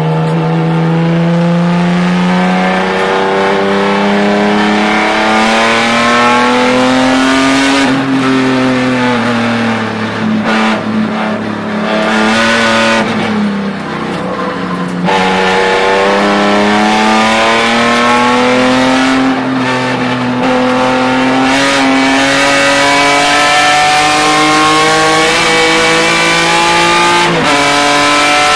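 BMW E46 M3 race car's straight-six engine heard from inside the cockpit. The pitch climbs under acceleration and falls back off-throttle for corners, several times over, and drops sharply near the end on an upshift.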